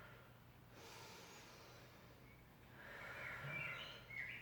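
A person breathing out audibly through the nose during a stretch, two soft breaths, the second longer, over a faint steady hum.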